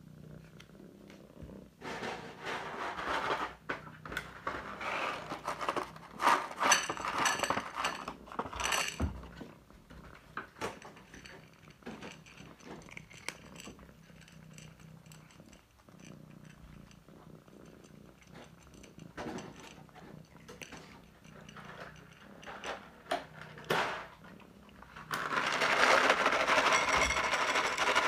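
Cats eating from a plate, wet chewing and lapping sounds in irregular clicky bursts, with purring. For the last few seconds a louder steady rush of noise.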